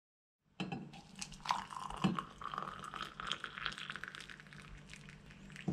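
Hot water poured from a ceramic jug into a ceramic mug over a tea bag, with scattered clicks and taps.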